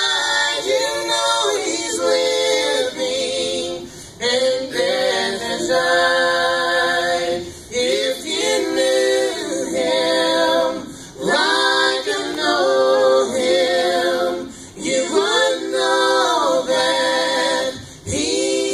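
Gospel family group, a woman and two men, singing a gospel song in harmony into hand-held microphones. They hold long, wavering notes, with short breaks between phrases every few seconds.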